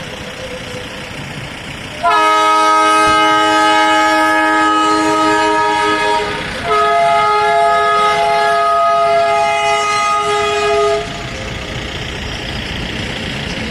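A multi-tone air horn sounds two long blasts of about four seconds each, the second starting right after the first, over steady traffic noise.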